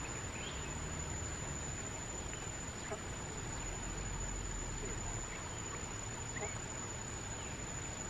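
A few faint, short, rising chirps from a small flock of quail feeding on the ground, over a steady hiss and a constant high-pitched whine.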